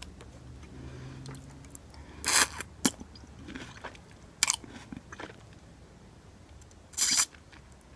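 Close-up eating sounds of instant ramen noodles: chewing, with short slurps as strands of noodles are sucked off a fork, the loudest about two seconds in and near the end.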